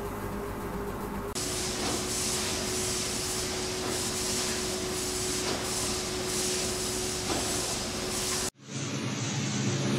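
Steady hiss of bakery machinery with a constant hum underneath. The sound changes abruptly about a second in and cuts off sharply near the end, where a lower, rumbling machine noise takes over.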